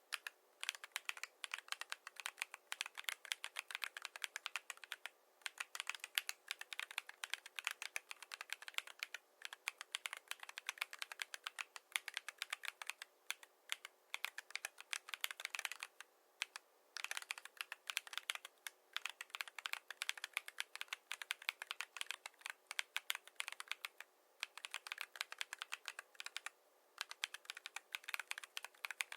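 Fast, steady typing on a mechanical keyboard with AKKO V3 Cream Blue Pro tactile switches and PBT MDA-profile keycaps, tape-modded and foamed: a dense run of keystroke clacks broken by a few brief pauses.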